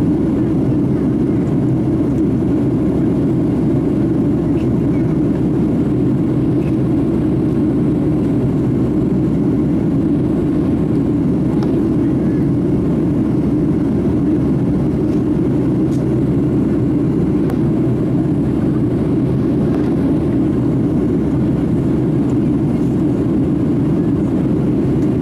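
Boeing 757 jet engines and rushing airflow heard inside the passenger cabin during the climb after takeoff: a loud, steady, low rumble that holds even throughout.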